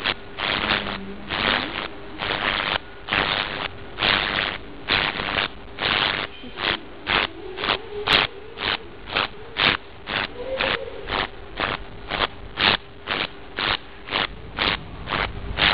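Ultrasonic cavitation handle running in pulsed mode with water on its metal head. Each pulse is a hiss as the water sputters and sprays, at first about once a second, then shorter and quicker, two to three a second, over a faint steady hum.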